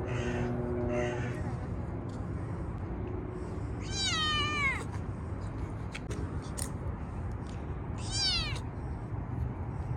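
A kitten meowing twice, about four seconds apart; each meow is long and slides down in pitch.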